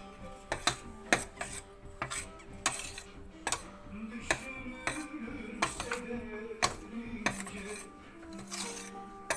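A spoon knocking and scraping against the pan of flour halva as it is worked, in irregular clinks about one every half second to second. Background music plays underneath.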